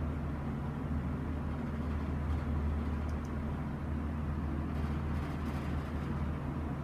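Large electric fan running steadily, a constant low hum with airy noise, with a few faint clicks about three and five seconds in.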